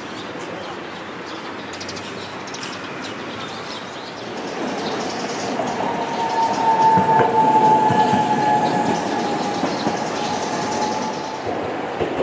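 Toden Arakawa Line streetcar running along its tracks, growing louder about halfway through, with a steady high squeal for several seconds.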